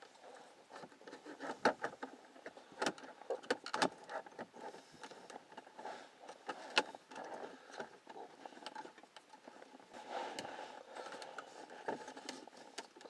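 Irregular clicks, taps and rustling of hands working inside a car's centre console dash, plastic parts knocking as the gauge pods are worked loose.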